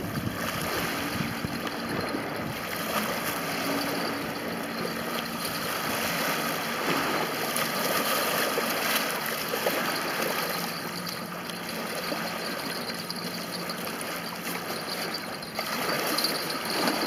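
Small waves lapping and breaking on a sandy lakeshore, with water splashing around a wader's legs as he wades out of the shallows.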